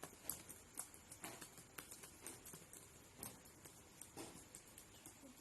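Computer keyboard typing: quick, uneven keystroke clicks, several a second.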